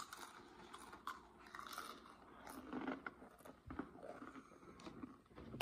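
Faint, irregular crunching of Doritos tortilla chips being chewed.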